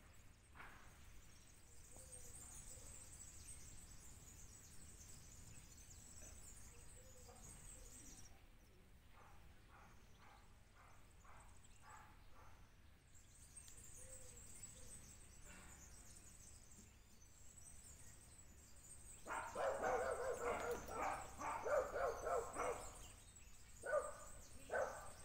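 A dog barking: faint barks about ten seconds in, then a loud, fast run of barks lasting about four seconds near the end, followed by two more short barks.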